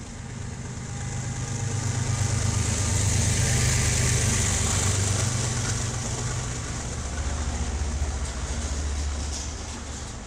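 Ferromex diesel freight locomotives passing close by, their engines running with a deep steady drone that is loudest about four seconds in. A lower engine note follows as the next unit goes past, with a hiss over the top.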